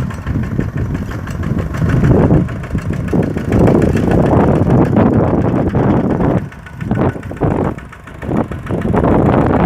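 Kubota RT-120 single-cylinder diesel engine running with a rapid, even chugging, its level dipping twice past the middle.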